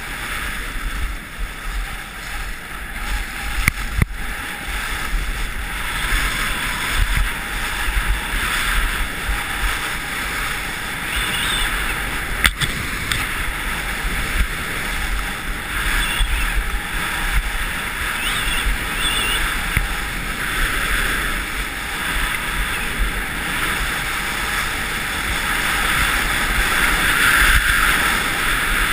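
Skis scraping and hissing over packed, groomed snow during a fast downhill run, with wind rushing past the camera. The noise is steady, with a couple of sharp clicks and a swell near the end.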